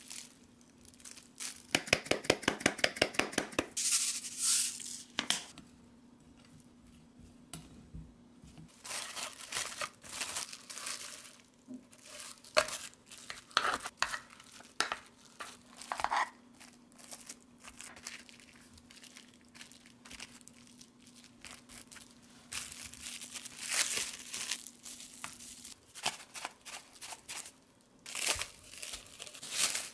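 Plastic cling wrap crinkling, rustling and tearing as it is handled, with a quick rattling run of ticks about two seconds in.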